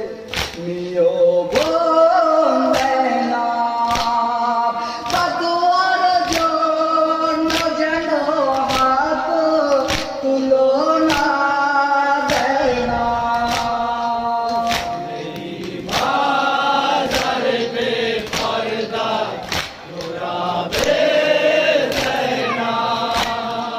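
Group of male mourners chanting a noha (Shia lament) together, with sharp chest-beating (matam) strikes keeping time about once every 0.8 s. The chant dips briefly about 15 s in, then resumes.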